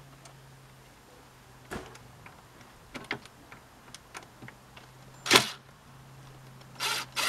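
Scattered clicks and knocks of a cordless impact driver and gloved hands on a marine sterndrive's metal gimbal housing as the bit is set into a trim-center screw, with one sharp knock about five seconds in. Near the end the impact driver starts rattling on the screw. A steady low hum runs underneath.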